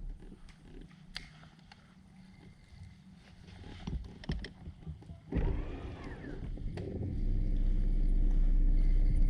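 A boat motor running with a steady low hum that builds about six seconds in and then holds loud, preceded by a sudden burst of noise about five seconds in and a few light clicks and knocks in the boat.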